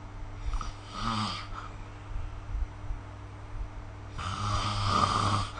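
A sleeping person snoring: two snores a few seconds apart, the second longer and louder, near the end. A steady low hum sits underneath.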